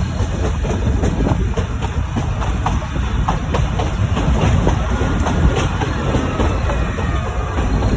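Nilgiri toy train running along metre-gauge track: a steady rumble of the carriages with frequent irregular clicks from the wheels on the rails. A faint thin whine runs through the second half.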